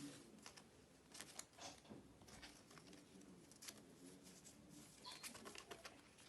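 Faint rustling and scattered light clicks of small items being handled: plastic and paper, as when unboxing and sorting photocards and binder decorations.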